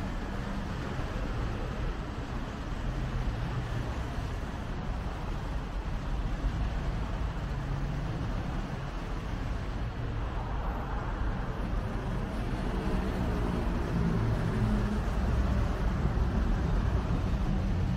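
Steady road traffic from the busy street below, a continuous hum of cars and engines. It grows somewhat louder in the second half, with one engine's low drone standing out.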